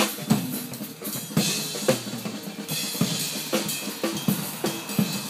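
Background music with a steady drum beat, about two beats a second.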